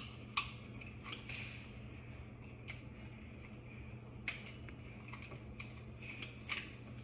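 Scattered light clicks and taps of small faucet parts being handled and fitted, over a steady low hum.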